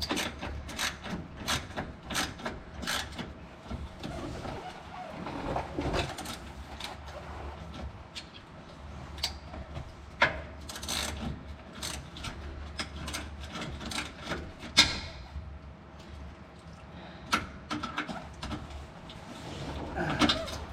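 Hand tools working the bolts of a pickup's underbody cover: irregular short metallic clicks and clanks, a few a second, over a low steady hum.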